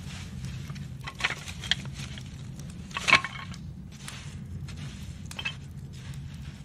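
Wood campfire crackling, with scattered sharp snaps of burning twigs and branches, the loudest about three seconds in, over a steady low hum.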